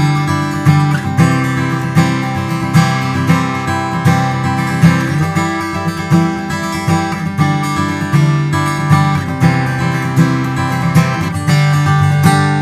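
Taylor 914ce acoustic guitar being played: strummed chords and picked notes in a steady rhythm, ending on a chord left ringing near the end.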